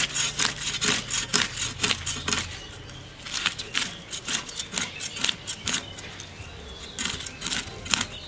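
A whole rohu fish being scaled by scraping it against the edge of a boti, a curved blade fixed upright on a wooden base. Quick rasping strokes come about three a second, in runs with short pauses between.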